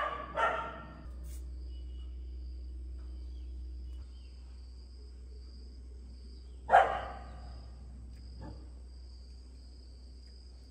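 Shih Tzu puppy barking: a short bark right at the start and one louder bark about seven seconds in, with a fainter one soon after.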